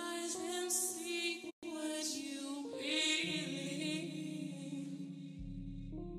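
Background music: a song with a singing voice over sustained chords, cutting out for a split second about a second and a half in.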